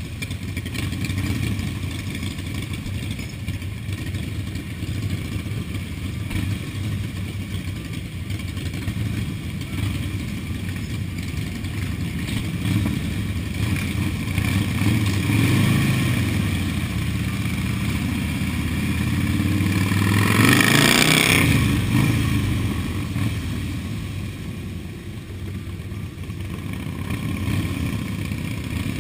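Several cruiser motorcycles running steadily at low speed in a slow group ride. About twenty seconds in, a nearby engine revs up, swells louder, and falls away again.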